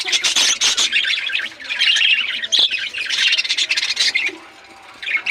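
A flock of budgerigars calling together in a dense, continuous chatter of high calls, which eases off for a moment near the end.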